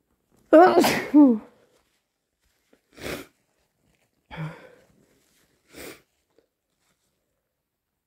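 A person with a cold sneezing once, forcefully and wetly, with a voiced two-part "ah-choo". Three short, quieter breathy noises follow, about a second and a half apart.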